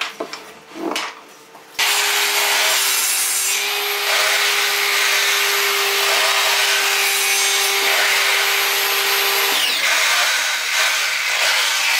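A few light knocks of wooden pieces being handled, then a power tool starts abruptly about two seconds in and runs steadily, a loud even whir with a constant hum underneath.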